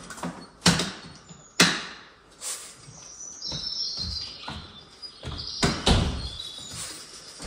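Birds chirping on a bird video for cats, played through the speaker of an Amazon Echo Show, with several sharp clicks in between, the loudest two within the first two seconds.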